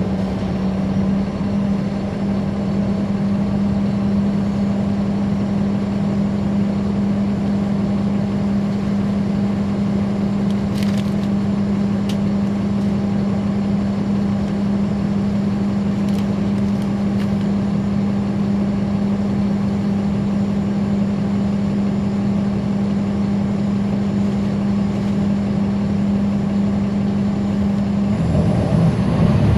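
Caterpillar C13 ACERT diesel engine of a NABI 416.15 transit bus, heard from inside the bus, running with a loud, steady drone that holds one pitch. Near the end the sound gets louder and changes pitch.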